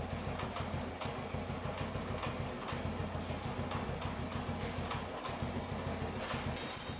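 Small single-cylinder four-stroke engine of a Honda WAVE copy motorcycle idling steadily with a light ticking: the engine noise is still there after the rocker arms were replaced and the tappets adjusted. A brief high-pitched ring near the end.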